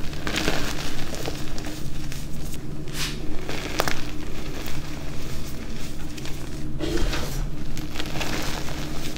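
Hands squeezing and pressing crumbled blue-dyed gym chalk powder: a soft, gritty crumbling and crunching, with a few sharper crunches as small chunks break.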